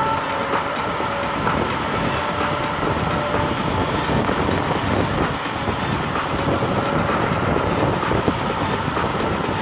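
Nanrobot LS7+ electric scooter riding along: a steady, dense rumble with many small knocks and rattles, and a faint steady whine over it.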